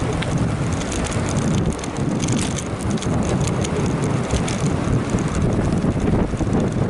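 Wind buffeting the microphone of a camera riding on a moving bicycle, over the steady rumble of bicycle tyres on rough asphalt, with scattered small rattles.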